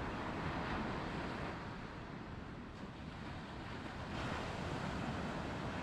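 Surf breaking and washing up a sandy beach in a steady rush that eases off in the middle and builds again about four seconds in, with wind rumbling on the microphone.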